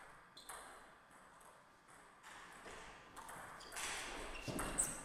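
Table tennis rally: the celluloid-type ball clicks sharply off rubber-faced rackets and the table top, a few hits a second apart. Near the end comes a louder scuffle of quick footwork on the court floor.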